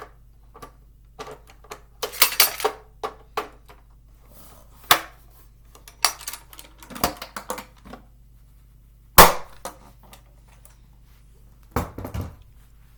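Metal ammo can and gear being handled: an irregular string of clanks, clicks and knocks, with a loud sharp bang about nine seconds in.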